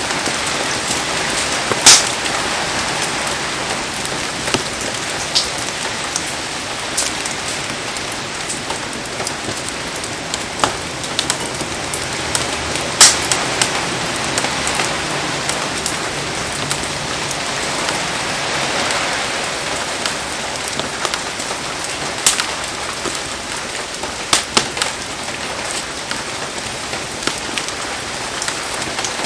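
Heavy rain falling steadily, a dense even patter, with scattered sharp pops and clicks now and then.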